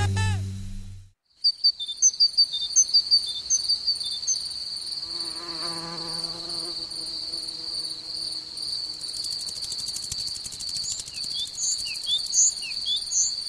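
A steady, high insect trill like a cricket's, starting just after string music cuts off about a second in. It pulses a few times a second at first and then runs on evenly. A short wavering buzz comes in the middle, and quick high chirps and falling whistles join it near the end.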